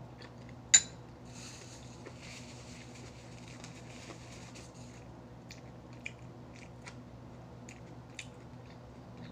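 Close-up eating of crispy fried chicken: a sharp loud bite about a second in, then a few seconds of crunchy chewing, followed by scattered small clicks and crunches.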